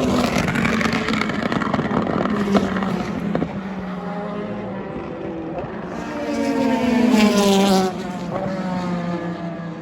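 Endurance race cars going by at racing speed, their engine notes falling in pitch as they pass. One loud pass comes at the start and another builds to its loudest about seven seconds in, with a few sharp exhaust pops in the first few seconds.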